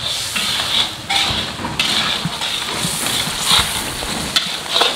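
Blended chili spice paste sizzling in a stainless-steel wok while a metal spatula scrapes and stirs it in repeated strokes.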